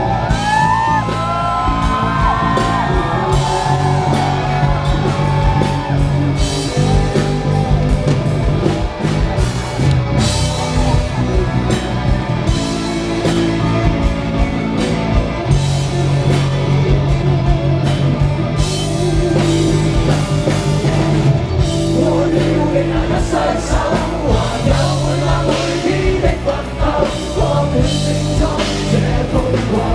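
Live rock band playing loud with full drums and bass, in a passage without sung lyrics. A lead line slides up and down in pitch near the start, and voices sing or shout over the band.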